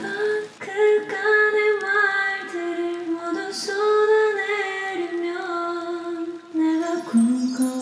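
A woman singing a slow melody unaccompanied while soaking in a bathtub, her voice echoing off the tiled bathroom walls.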